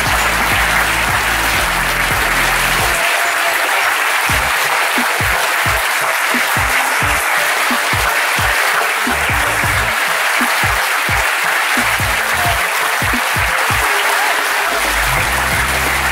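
An audience applauding steadily, with music underneath whose low notes drop out for most of the middle and return near the end.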